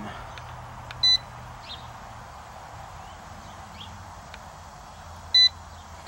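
Two short electronic beeps from an Amprobe ACD-51NAV clamp meter as its buttons are pressed, one about a second in and another about four seconds later, each brief and high-pitched.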